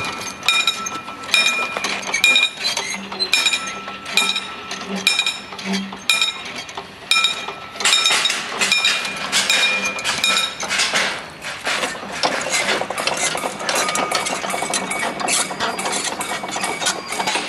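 Hand-cranked railway level-crossing barrier winch being turned: its warning bell gives repeated ringing strikes, then from about halfway the crank and gearing click and clatter rapidly and without a break.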